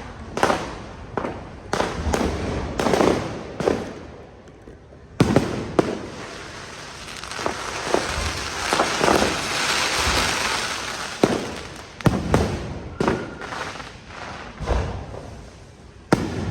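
New Year fireworks going off: a run of irregular sharp bangs, some with a short rumbling tail. A dense, continuous stretch of noise sits in the middle, with the bangs thinning out towards the end.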